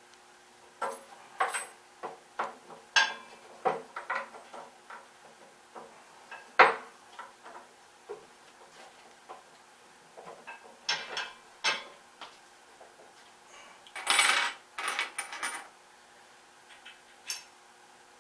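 Irregular metallic clinks and knocks of hardware being handled while a fastener is lined up in a dolly's hole, with a short, denser rattle about three-quarters of the way through.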